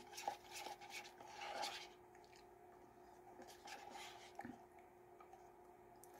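Plastic spoon scraping and scooping in a paper McFlurry cup, in a few short faint scrapes, most in the first two seconds and a few more around the middle.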